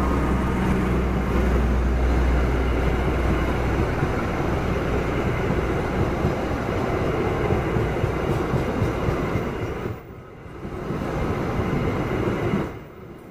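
A passenger train passing close by: the diesel locomotive's deep rumble fades over the first few seconds, leaving the steady rush of stainless-steel coaches rolling over the rails. The noise dips briefly about ten seconds in and falls away near the end.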